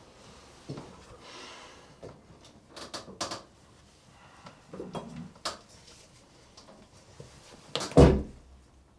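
Bathroom mirror cabinet being opened and toiletries on its shelves handled: a few scattered clicks and knocks, then one loud heavy thud near the end.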